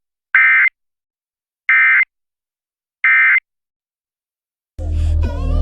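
Emergency Alert System end-of-message code: three short identical bursts of digital data tones, about a second and a third apart, marking the close of the test. Music starts near the end.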